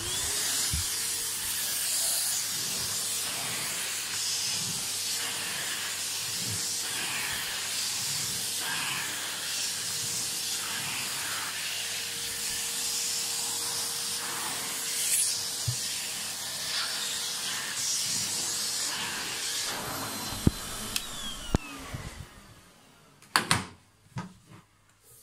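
Numatic James vacuum cleaner switched on: the motor runs up at once and holds a steady rushing hiss of air while the floor tool is worked over carpet. About twenty seconds in, it is switched off and the motor winds down with a falling whine, followed by a couple of sharp clicks.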